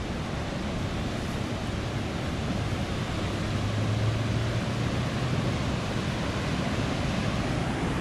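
Steady rushing of spring water pouring over a low concrete weir and churning in white water below, with a low hum swelling and fading midway.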